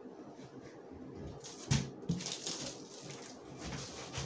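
Cardboard shipping box being handled: a thump a little before halfway, then continuous scraping and rustling of cardboard and plastic-wrapped tape.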